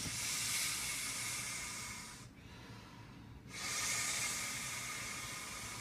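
A man blowing by mouth into the valve of a large inflatable vinyl seat: two long, breathy blows of air, with a pause of just over a second between them for breath.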